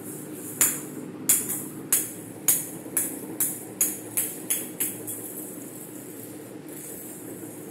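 A small plastic ball bouncing on a hard tiled floor: about ten bounces, each coming quicker and softer than the last, dying away within about five seconds.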